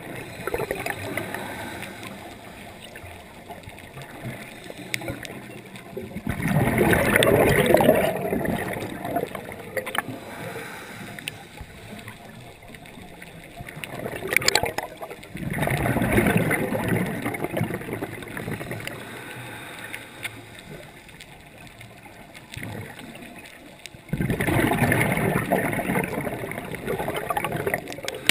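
Scuba divers breathing through their regulators underwater: a low gurgling rush of exhaled bubbles every eight or nine seconds, each lasting two to three seconds, over a steady muffled underwater hiss.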